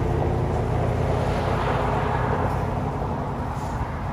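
A motor vehicle's engine running steadily, a constant low rumble.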